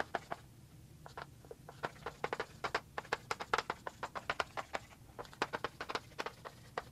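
Chalk writing on a blackboard: a quick run of short taps and scratches as each letter is stroked on, with brief pauses between words.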